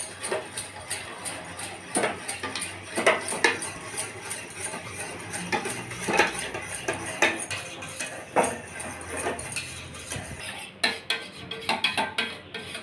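Wire whisk beating milk in a stainless steel saucepan, its wires clinking and scraping against the metal sides and bottom in quick, irregular strokes, dissolving granulated sugar in the hot milk.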